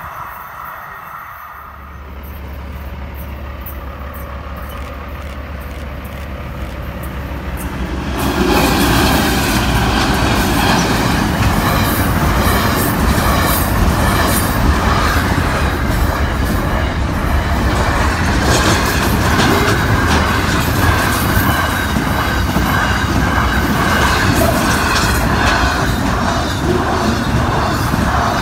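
Container freight train's wagons, many double-stacked, rolling past close by, with a dense run of repeated wheel clicks on the rails. Quieter at first, then much louder from about eight seconds in.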